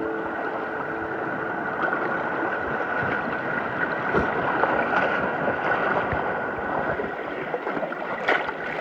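Seawater sloshing and gurgling among rocks, with scattered sharp clicks.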